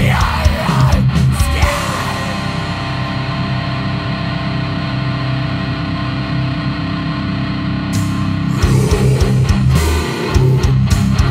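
Heavy rock band demo recording: the full band with drums plays for a couple of seconds, then drops out to a guitar chord held ringing for several seconds, and the drums and band crash back in about eight and a half seconds in.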